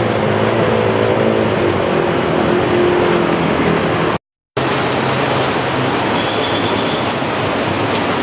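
Road traffic driving through a flooded street: a vehicle engine hums over a steady wash of rushing floodwater and rain. The sound drops out for a moment about four seconds in, then the water wash continues.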